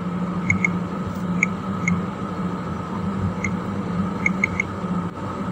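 Steady low background hum with a fainter steady higher tone, and about eight faint, very short high pips scattered through it, some in quick pairs.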